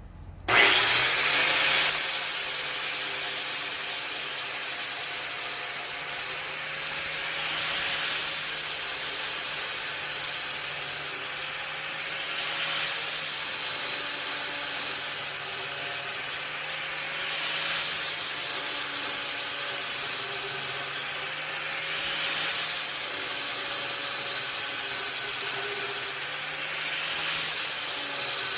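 Angle grinder in an All American Sharpener blade jig starting up about half a second in, then grinding the edge of a steel mower blade. The grinding swells and eases in repeated passes about every five seconds over the steady whine of the motor.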